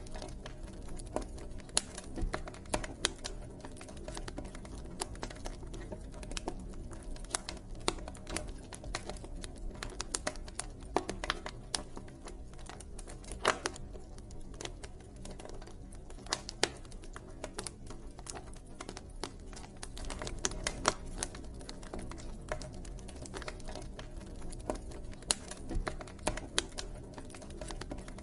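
Wood fire crackling: irregular sharp pops and snaps, several a second, over a steady low rumble of burning.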